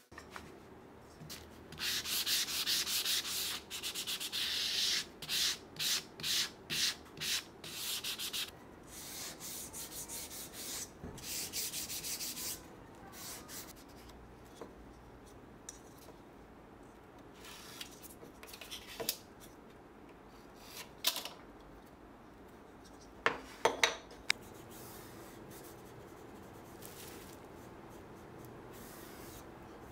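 Wood being rubbed with abrasive by hand, in rhythmic strokes of about one to two a second, for roughly the first twelve seconds. After that come quieter bench sounds, with a few sharp clicks of wooden parts being handled.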